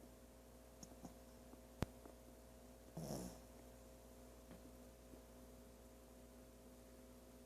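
A sleeping pet snoring: one short snore about three seconds in, over a faint steady hum. A single sharp click, the loudest sound, comes a little before the snore.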